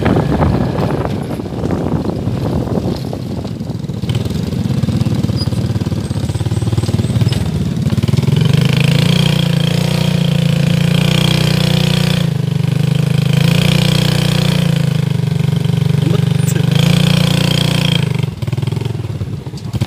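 Motorcycle engine running with wind on the microphone as the bike rides along a dirt track, then idling with a steady hum from about halfway in, dropping away shortly before the end.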